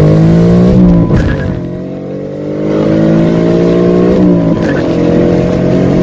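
Ford Mustang's 5.0 V8 accelerating hard through the gears, heard from inside the cabin. Its pitch climbs, then drops at upshifts about a second in and again about four seconds in.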